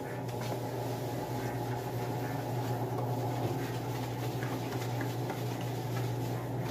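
A steady mechanical hum under faint clinks and rubbing of dishes being washed by hand at a kitchen sink.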